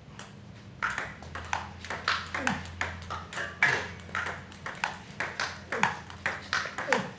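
Table tennis ball clicking back and forth between pimpled-rubber rackets and the table in a continuous rally, with about three sharp clicks a second.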